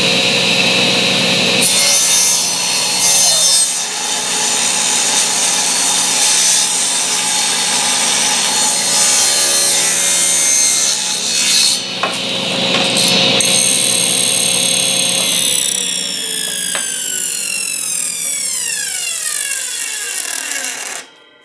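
Table saw running and ripping a thin strip off a wooden board along the fence, with a short break in the cut partway through. About fifteen seconds in the blade winds down with a steadily falling whine.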